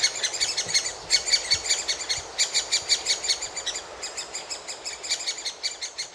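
Great spotted woodpecker chicks calling in a fast, steady chatter of short high calls, several a second: nestlings begging for food.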